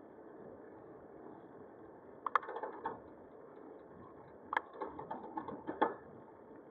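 Bicycle clicking and rattling in two short spells, about two seconds in and again from about four and a half to six seconds in, over a steady hiss of riding.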